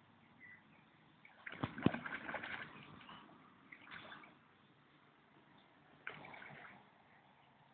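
Spawning carp splashing at the surface: a burst of splashing about one and a half seconds in that lasts over a second, then shorter splashes around four and six seconds.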